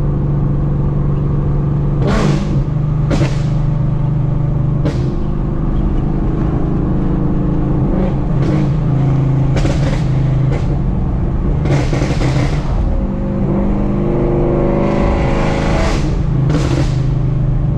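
Ford Mustang GT's Coyote 5.0 V8, straight-piped through long-tube headers, X-pipe and no mufflers, heard from inside the cabin on the move: a steady exhaust note broken every second or two by short bursts of popping and crackling from the burble tune. The revs climb for a couple of seconds about thirteen seconds in.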